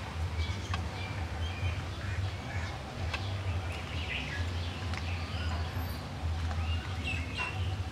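Birds chirping in short, scattered calls over a steady low hum.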